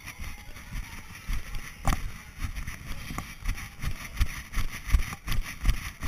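Footfalls of a referee running on a hardwood gym floor, heard through a camera worn on his body: a steady run of low thuds, about two to three a second, from about a second in, with the camera's jostling.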